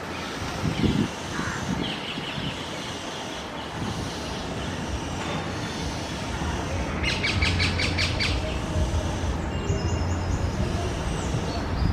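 Oriental magpie robin calling: a few thin whistled notes and, a little past the middle, a quick rattle of about eight clicks lasting under a second. A steady low rumble runs underneath through the second half.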